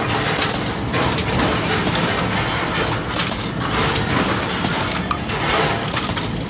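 Six-cavity automatic PET bottle blow molding machine running: a steady mechanical clatter, with repeated sharp clicks every second or so.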